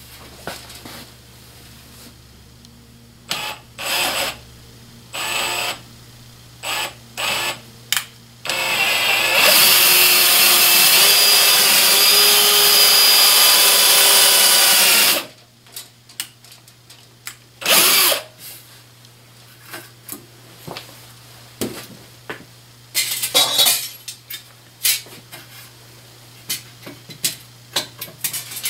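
Cordless drill boring an inch-deep hole into pressure-treated 2x2 lumber, its bit fitted with a depth stop: a few short trigger bursts, then one loud steady run of about seven seconds that cuts off. Scattered knocks and clicks follow as the work is handled.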